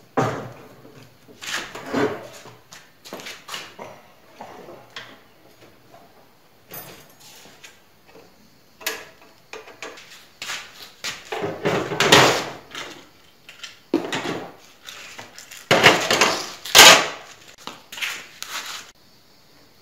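Irregular knocks, clunks and rattles of a Scheppach HS100S table saw and its sheet-steel stand being handled, turned upright and set down on its feet. The loudest clatter comes a little past halfway and again near the end.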